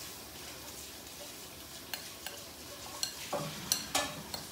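Metal spoon stirring a thick blended sauce in a ceramic bowl, with a few short clinks and scrapes against the bowl in the second half, the loudest near the end.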